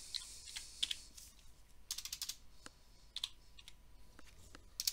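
Computer keyboard keys clicking in short, irregular runs with pauses between, as a word is typed and corrected letter by letter.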